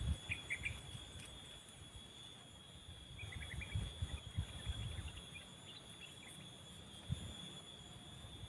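Steady high-pitched buzz of forest insects, with soft low knocks and handling as bamboo poles are lashed together. A few short chirps come about half a second in and again around three and a half seconds in.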